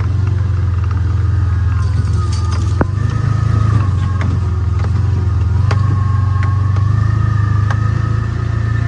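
Side-by-side utility vehicle's engine running steadily while it drives along a rough trail, with a thin whine above the engine hum and a few sharp clicks and knocks from the vehicle jolting over the ground.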